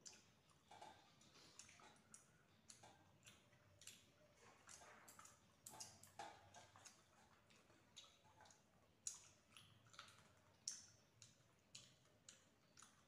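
Faint, irregular clicks and smacks of two people eating rice and curry by hand: fingertips scraping and tapping on metal plates, and chewing.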